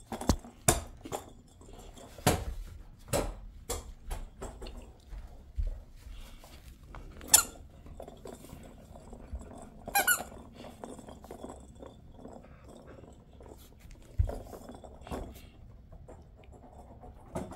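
Squeaky rubber toy ball being squeezed again and again, giving a string of short, irregular squeaks, the loudest about seven and ten seconds in.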